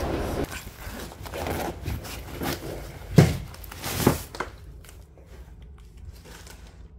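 Clothes and fabric rustling as they are handled over an open suitcase, with two sharp knocks about three and four seconds in.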